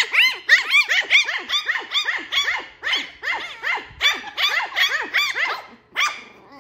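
Lhasa apso puppies yapping in rapid, high-pitched yips, several a second, with a brief pause about six seconds in: the noise of puppies play-fighting.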